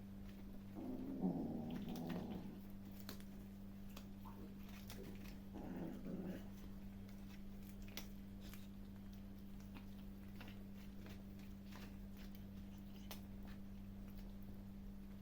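Kittens eating chicken, growling low twice over their food, with faint clicks of chewing in between.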